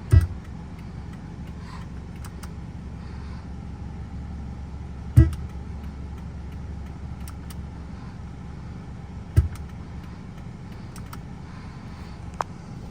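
Static clicks and pops from a 2008 Suzuki Swift's audio speakers, coming at irregular moments over a steady low hum, with three heavier thumps near the start, about five seconds in and about nine seconds in. This is electrical interference reaching the speakers when the turn signals, hazards or door locks are used.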